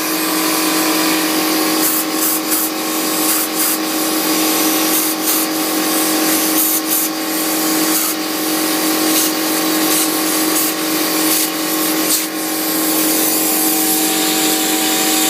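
Air compressor running with a steady hum while compressed air hisses from the hose nozzle, the hiss jumping up in short blasts several times.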